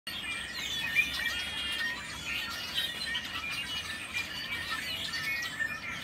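Many birds chirping and whistling at once in a dense, noisy chorus with no break, with one louder chirp about a second in.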